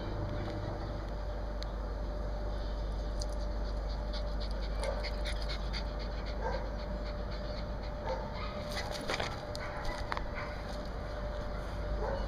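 A small dog panting close to the microphone.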